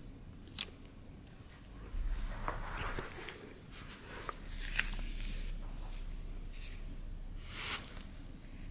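Norwegian Forest Cat biting and pawing at a small fabric catnip toy: scratchy rustling and soft crunching in several short bouts, with one sharp click about half a second in.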